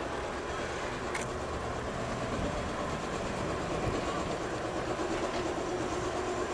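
Passenger cars of a Canadian Pacific train rolling steadily past, steel wheels running on the rails. There is a brief click about a second in, and a faint steady hum joins after about four seconds.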